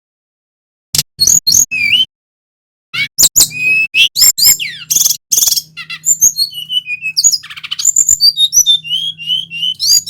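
Male sikatan rimba dada coklat (a jungle flycatcher) singing. A few short chirped notes come about a second in, and after a brief pause there is a long, rapid run of varied whistles, trills and falling notes.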